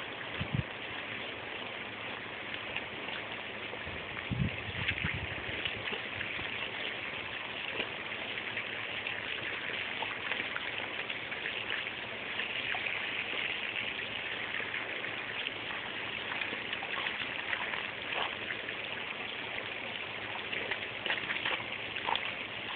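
Steady hiss of a garden hose's water jet spraying up and splashing onto wet mulch, with small splashes and patters as a dog digs and bites at the spray. There are brief low thumps about half a second in and again around four and a half seconds.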